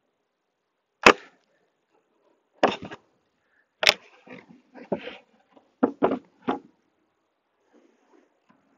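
A metal hive tool prying at a wooden beehive, and the hive's cover being lifted off: a string of sharp wooden knocks and scrapes, several in quick succession a little after the middle.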